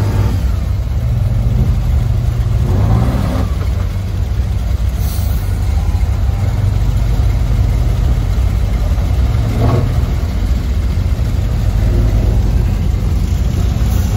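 A motor vehicle's engine running steadily with a deep drone, with brief extra noises about three and ten seconds in.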